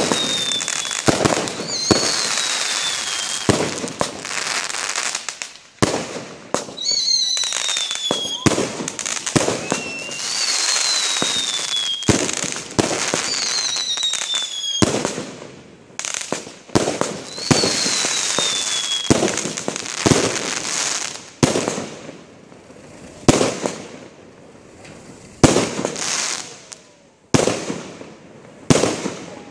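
Aerial fireworks firing in quick succession: launches and bursts with dense crackling and several falling whistles during the first two-thirds, then fewer, separate bangs with quieter gaps near the end.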